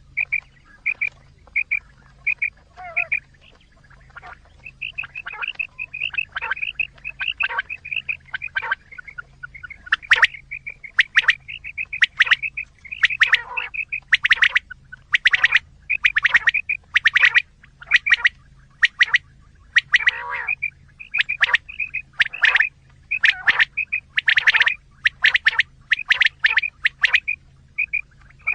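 Quail calls played as a hunting lure: a dense run of short, sharp chirping calls, several a second, overlapping at times. They grow louder and fuller about ten seconds in.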